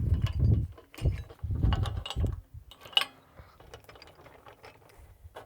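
Metal rigging clinking and rattling as it is fed through and pulled, in three bursts with dull handling thumps over the first two and a half seconds, then one sharp click and a few faint clicks.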